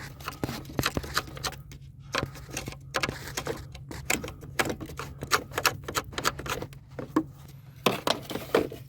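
Irregular clicks, taps and rustling of hands handling wiring and a plastic trim panel in a truck's footwell, over a steady low hum.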